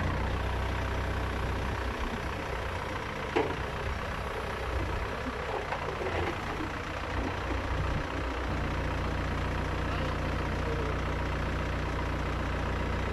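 Komatsu backhoe loader's diesel engine running steadily while the backhoe arm digs, with one short knock about three and a half seconds in and a slight change in the engine note a little past halfway.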